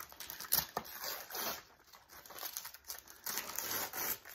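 Christmas wrapping paper being torn and crumpled as a gift is unwrapped, in irregular bursts of rustling, the busiest stretch near the end.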